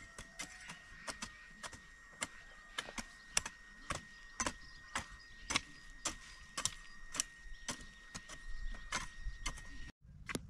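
Hand hoes chopping into dry, stony garden soil: sharp, irregular strikes about two a second from two people working at once.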